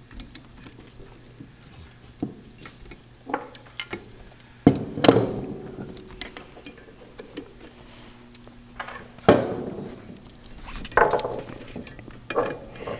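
Light metallic clinks and clicks from an Edelbrock carburetor's air horn, brass floats and small hand tools being handled on a wooden workbench. There are a few louder knocks about five seconds in and again about nine seconds in.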